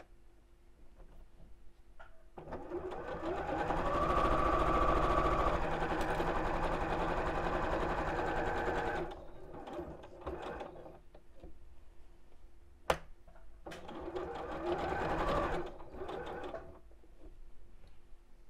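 Electric domestic sewing machine stitching a seam: a steady run of about seven seconds that stops, a sharp click, then a second shorter run of about three seconds.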